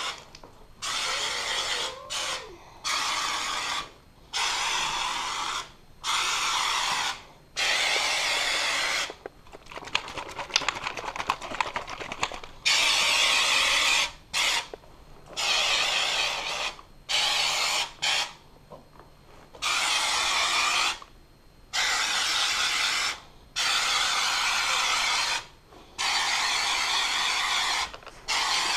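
Homax aerosol spray-texture can spattering knockdown texture onto a drywall patch, in a dozen or more hissing bursts of a second or so each, stopping and starting. About ten seconds in, the spraying pauses for a couple of seconds of rapid clicking.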